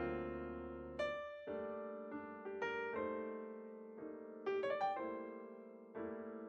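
Background music: a piano playing gentle chords with a melody on top, with a quick run of high notes about two-thirds of the way through.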